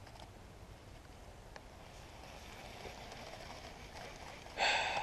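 A short, loud whir about half a second long near the end: an Abu Garcia Ambassadeur baitcasting reel's spool spinning out line on a cast.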